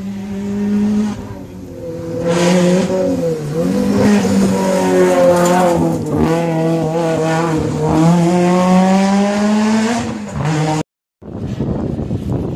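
Race car's engine held at high revs, its note wavering and dipping briefly a couple of times as the throttle is worked; the sound cuts off abruptly near the end.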